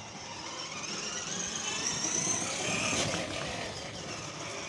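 Battery-powered ride-on toy car driving, its electric drive running with a steady mechanical sound as the plastic wheels roll over paving stones.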